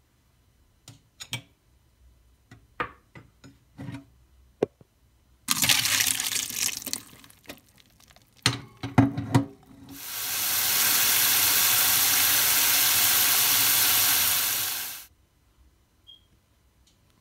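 Kitchen tap running water into a stainless steel sink for about five seconds, then shut off. Before it come scattered knocks and clatter from handling a plastic strainer, and a short gush of water.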